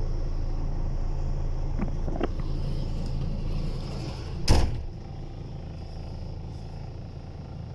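Diesel engine of a MAN concrete mixer truck running steadily at idle. About four and a half seconds in comes a single loud thump, after which the engine sounds quieter.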